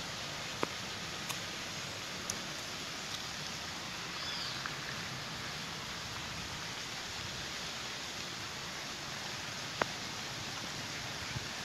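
Steady, even hiss of outdoor background noise, with a few faint clicks about half a second, one and two seconds in, and one near the end.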